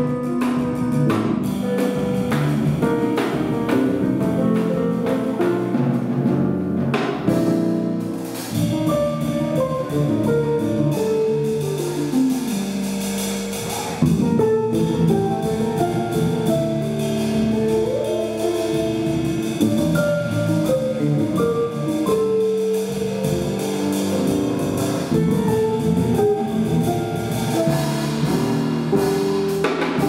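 A live jazz quartet playing: acoustic guitar over a drum kit, with a steady groove and many moving melodic notes.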